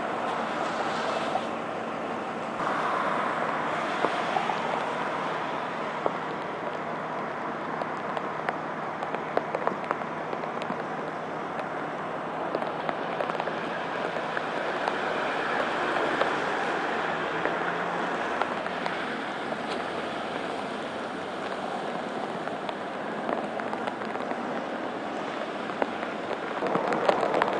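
Steady rain falling on the open freeway, with scattered drops ticking near the microphone and the hiss of vehicles on the wet pavement.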